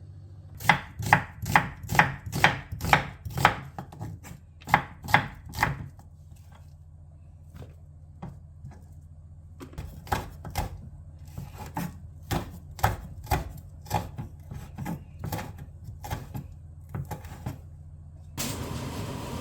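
Kitchen knife chopping on a cutting board: a quick, even run of about two or three chops a second, a pause, then slower, irregular chops. A steady hiss starts near the end.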